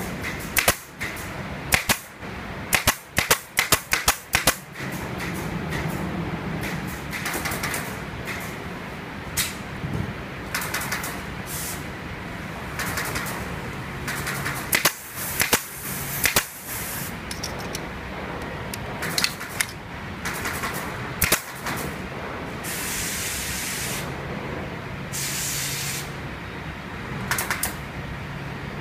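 Furniture factory workshop noise: runs of sharp snaps and knocks, several close together in the first few seconds, and a few separate bursts of hissing, spray-like air over a steady machine din.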